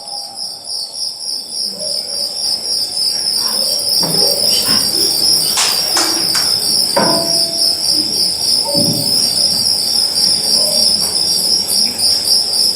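Experimental sound-art performance: a high, pulsing cricket-like chirring held steady throughout, growing louder over the first couple of seconds, with scattered sharp knocks and short ringing tones around the middle.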